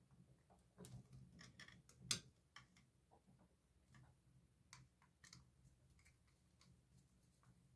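Faint, scattered clicks and taps of a wall light switch and its wires and screws being handled, with one sharper click about two seconds in.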